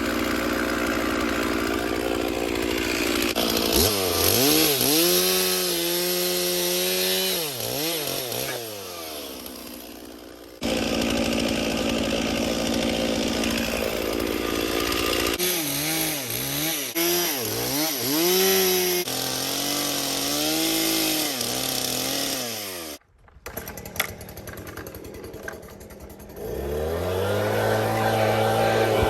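Stihl two-stroke chainsaw running and cutting wood, its engine speed dipping and climbing again and again as the chain bites. The sound breaks off abruptly several times, with a short near-silent gap about three quarters of the way in, and near the end the saw revs up to a steady high speed.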